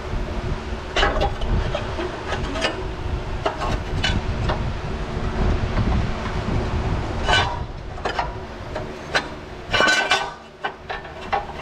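Hand tools clinking and knocking against metal in irregular sharp strikes, over a steady low rumble.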